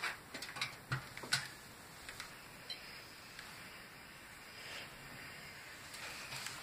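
Clothes iron and cotton fabric being handled on an ironing board: a few light clicks and knocks in the first second and a half, then a soft hiss that builds near the end as the iron is pressed along the folded strap.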